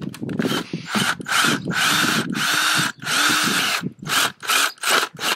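Cordless drill run in a series of short trigger bursts, its motor pitch rising and falling with each, as the bit drills out the anti-tamper plug over a motorcycle carburetor's idle mixture screw.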